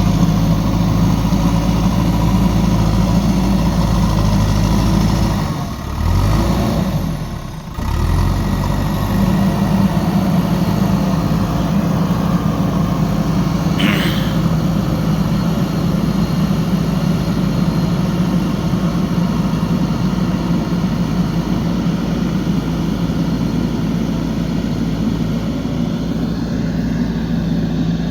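JCB 3DX backhoe loader's diesel engine running steadily while the machine works. Its note dips and climbs back twice, about six and eight seconds in, and a brief high chirp sounds about halfway through.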